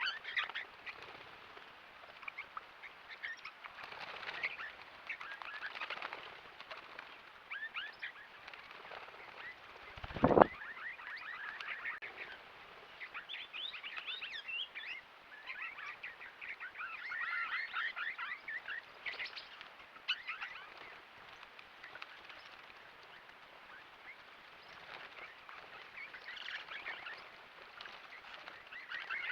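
A flock of swift parrots calling: many quick, high chirps in rapid overlapping series. About ten seconds in there is a brief loud burst of noise.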